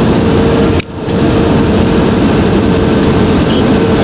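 Steady engine and airflow noise inside an Airbus A320 cabin on approach, with a steady droning tone under it. The sound drops out sharply for a moment about a second in.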